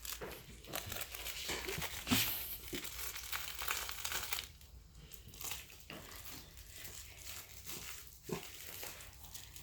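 Crinkly dog toy being chewed and worked over by a dog: quick crinkling crackles, busy for the first half, then sparser and quieter.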